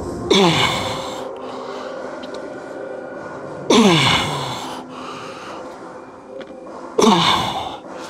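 A man's forceful, strained exhalations, each ending in a groan that falls in pitch: three of them about three seconds apart, the breathing of someone pushing through heavy lifting repetitions.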